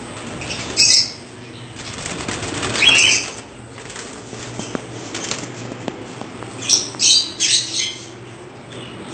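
Lovebirds flapping their wings in a wire cage, in short bursts: one about a second in, another around three seconds, and a quick cluster of four near the end.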